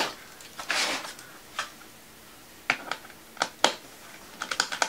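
Handling noises from tools and a laptop on a desk: a brief scraping rustle, then scattered sharp clicks and taps that quicken into a fast run of clicks near the end.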